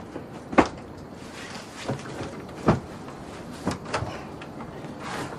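Bedding being handled on a wooden bed or platform: a series of knocks and thuds of wood, the sharpest about half a second in and again near the middle.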